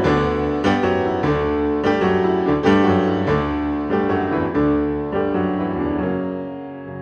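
Background piano music: chords struck about once or twice a second, ringing on and fading near the end.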